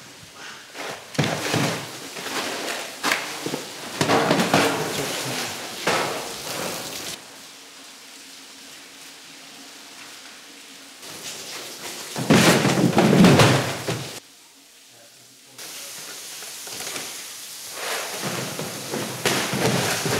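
White plastic crates being handled and stacked: bursts of clattering and knocking over splashing water, with a quieter spell of steady machine hum between about seven and eleven seconds in.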